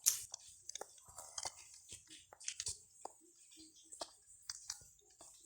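Faint, scattered small clicks and taps of small objects being handled and set in place, with a little crackle between them.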